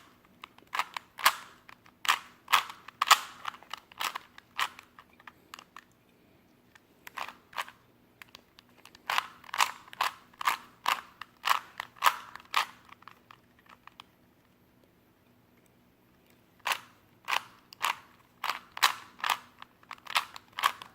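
A Rubik's Cube being turned by hand, its plastic layers clicking and snapping with each twist, about two turns a second. The turns come in three runs with short pauses between them.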